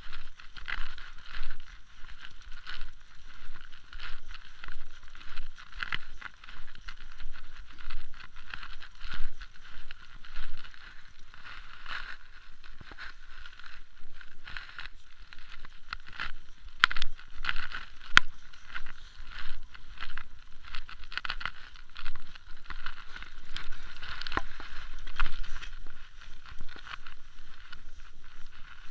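Mountain bike rolling over bumpy grass, heard from a camera mounted on its handlebars: a constant rattling and clattering with many irregular sharp clicks, over a low wind rumble.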